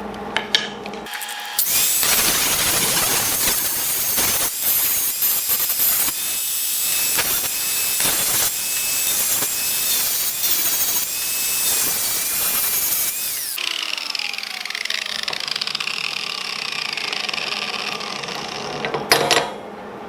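Power grinder abrading mill scale off steel: a loud grinding rush with a steady high whine for about twelve seconds, then the tool lifts off and spins down with a falling whine, followed by a short clatter near the end.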